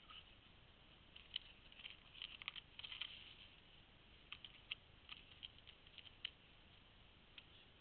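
Faint, irregular light clicks and rubbing as a road-bike tyre is worked onto its wheel rim by hand during a puncture repair, in two short clusters.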